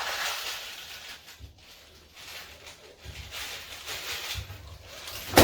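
Light handling and rustling as metal frame runners are fastened to a wooden hive super with small frame nails, with one sharp hammer tap near the end.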